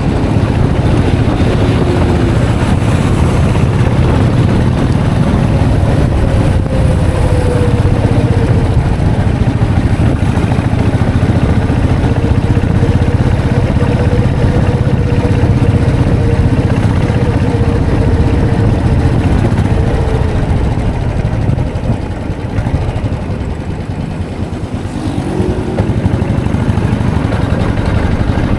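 Royal Enfield Classic 500's single-cylinder engine running steadily while riding. It eases off for a few seconds late on, then picks up again near the end.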